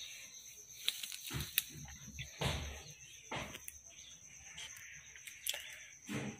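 Faint scratching and rustling of a felt-tip sketch pen and paper as lines are inked and the sheet is shifted: several short scrapes, most of them in the first half, over a steady faint high tone.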